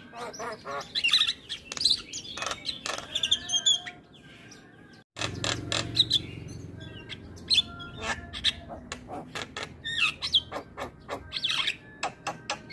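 Javan myna singing a varied, busy run of sharp clicking notes and curving whistles. It falls quiet for about a second before the middle, then starts again.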